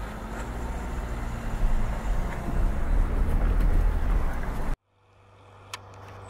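Car engine and road rumble heard inside the cabin as the car moves off, getting louder about one and a half seconds in. It cuts off suddenly about five seconds in, leaving a quiet steady low hum and a single click.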